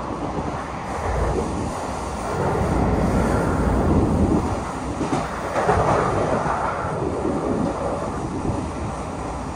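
MBTA Blue Line 700-series subway car running along the track, heard from inside the car: a continuous rumble of wheels on rail that swells louder and eases off a couple of times.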